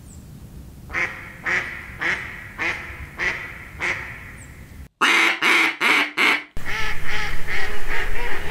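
Live mallards quacking in flooded timber, a string of about six evenly spaced quacks. About five seconds in, four quacks blown on a JJ Lares A5 mallard duck call copy it, followed by quicker quacking from the real birds.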